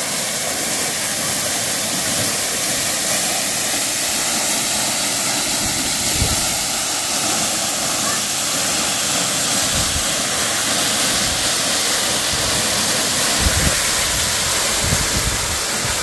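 Waterfall pouring into a shallow rocky pool, a loud, steady rushing and splashing, with a few brief low thumps partway through.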